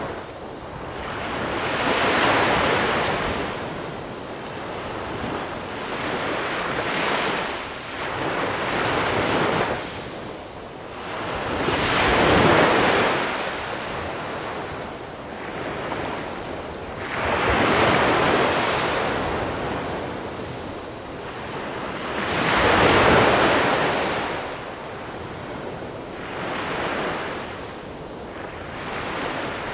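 Sea waves breaking and washing over a small-pebble beach, the surf swelling and fading in repeated surges, with the bigger ones coming about every five seconds.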